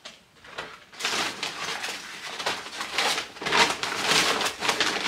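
A shopping bag and the packaging inside it rustling and crinkling as a hand rummages through it, starting about a second in and continuing in irregular bursts.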